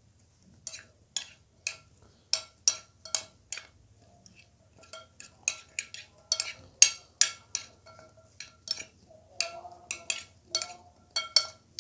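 Spoon clinking against a bowl while mixing cut bottle gourd: a steady run of sharp ringing clicks, about two a second.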